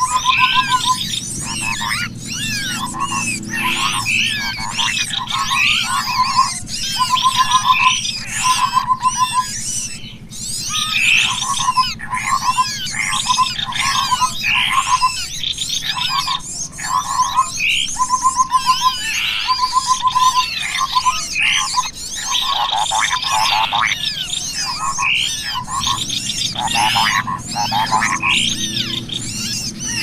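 Bird-lure call recording of cucak kopi (kopi-kopi) and small birds: a dense chorus of chirps and whistling calls, with a short rapid trill repeated every second or so, over a steady low hum.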